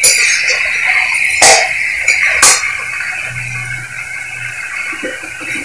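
A metal spatula scrapes and knocks against a kadhai while paneer bhurji is stirred over a steady frying sizzle, with two sharp clanks about a second and a half and two and a half seconds in. It grows quieter once the stirring stops.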